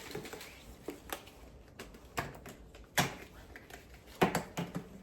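Hair-product bottles and jars being set down on a table: a series of separate sharp knocks and clicks, the loudest about three seconds in and just after four seconds.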